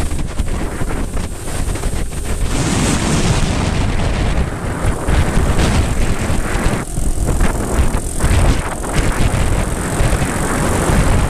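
Heavy wind buffeting on the microphone of a camera riding on a moving moped, with the moped's small engine running underneath.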